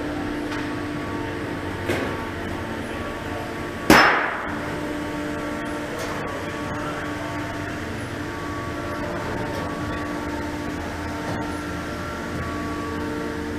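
Workshop ambience with a steady hum, broken by a sharp metallic clang about four seconds in that rings briefly, and a lighter knock about two seconds before it.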